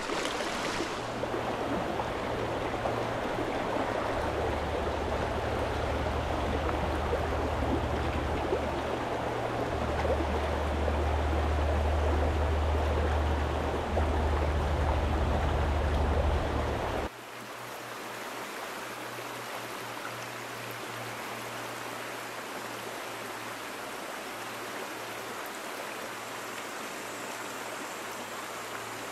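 Steady rush of stream water running through pocket water. A low rumble under it drops away suddenly a little past halfway, leaving a quieter, even water sound.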